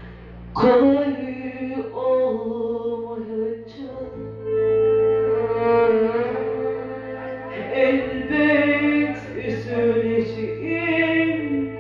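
Live Turkish music from a small saz ensemble with a hand drum: a melodic line with long held, sliding notes, coming in loudly about half a second in.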